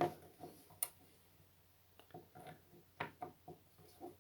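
Faint, scattered clicks and light taps of small plastic and metal latch parts being handled and fitted, as the lock mechanism goes back into a Mercedes W169 A-Class tailgate latch housing; a sharper click just under a second in and a few more about three seconds in.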